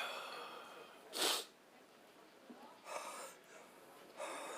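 A person sneezing: a drawn-in breath, then one sharp sneeze just over a second in, followed by two shorter breathy sounds.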